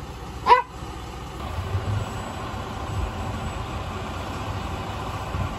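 Box delivery truck's engine idling steadily, its low hum swelling slightly after the first second or so, with a short high call about half a second in.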